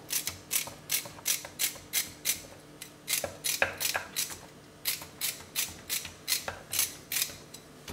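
A celery stalk being sliced by hand with a small knife: crisp crunching cuts about three a second, with a short pause about halfway through.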